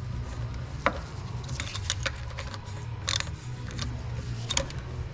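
Hand tools and metal parts clicking and knocking during ATV rear axle disassembly. A sharp knock comes about a second in and a short rattling scrape just after three seconds, over a steady low hum.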